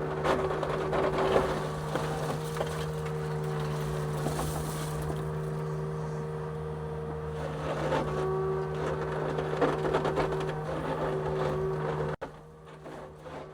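Excavator's diesel engine running steadily while concrete is broken up, with scattered knocks and crunches of slab cracking and shifting in two spells. The sound drops off abruptly near the end.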